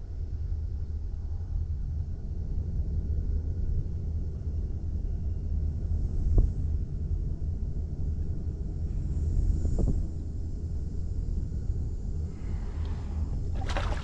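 A steady low rumble with a couple of small clicks, then near the end a short splash as a bass is dropped back into the river.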